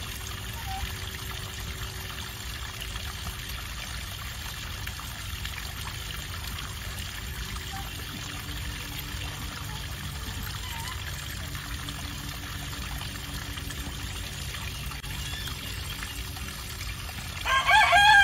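Steady trickle of water running along a shallow stone-lined channel. Near the end a rooster starts to crow.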